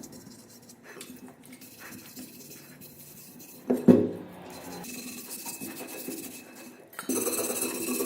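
Metal parts and tools clinking as they are handled, with a louder knock about four seconds in and busier clattering near the end.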